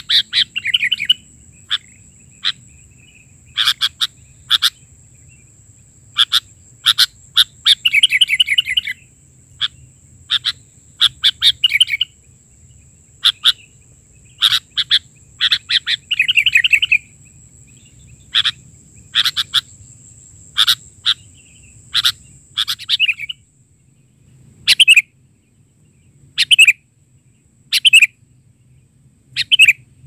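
Sooty-headed bulbul (kutilang) calling vigorously: short sharp chirps in quick groups of two or three, with longer bubbling warbled phrases about 8 and 16 seconds in. A thin steady high tone sounds behind the calls until about 24 seconds in.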